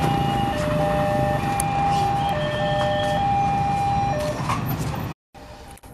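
Railway level-crossing warning alarm sounding in a repeating pattern of two alternating tones, over the low rumble of motorcycle engines waiting at the crossing. It cuts off abruptly about five seconds in.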